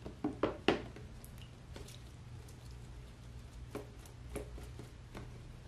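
CLR rust remover poured from a plastic jug into a plastic tub of soaking metal parts: a few sharp splashes and taps in the first second, then scattered drips and small clicks over a low steady hum.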